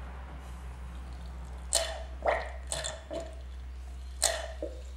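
KTM fork damper cartridge being bled by hand, the damper rod stroked up and down through the fork oil. It gives about six short liquid sounds, each under a second apart, from about two seconds in.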